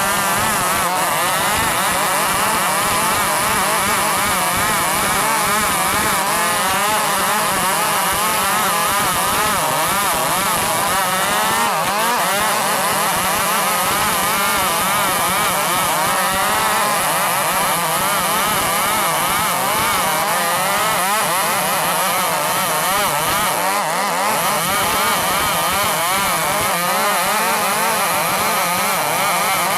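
105cc two-stroke chainsaw running at high revs under load as it saws along timber, its pitch wavering up and down continuously with the cut.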